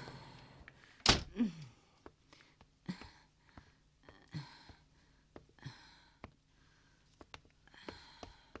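A wooden front door shut with a thunk about a second in, followed by scattered soft footsteps and light knocks on a wooden floor.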